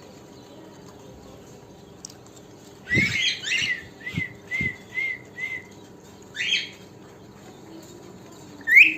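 Pet cockatiel calling: a burst of chirps about three seconds in, then a quick run of about five short, evenly spaced chirps, another call a little later, and a rising call near the end.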